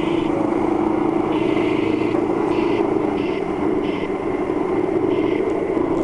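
Radio-controlled scale rock crawler's electric motor and gearbox whining steadily as it drives, heard close up from on board, easing off slightly near the end.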